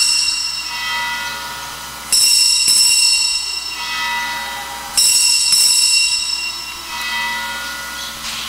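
Altar bell rung at the elevation of the chalice after the consecration at Mass. A ring already fading at the start, then two more sharp strikes about three seconds apart, each ringing with several high tones and dying away slowly.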